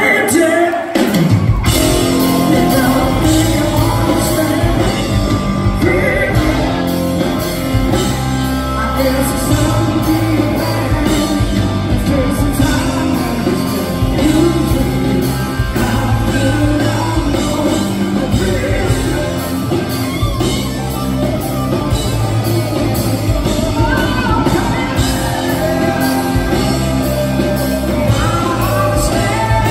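Live rock band playing: electric guitar and bass with a man singing lead, the full band coming in about a second in. Recorded from the audience in a large hall.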